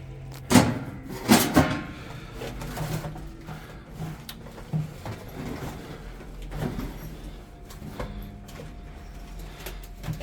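A couple of loud knocks and bangs about half a second and a second and a half in, like a door or hatch being handled, followed by scattered lighter knocks and shuffling.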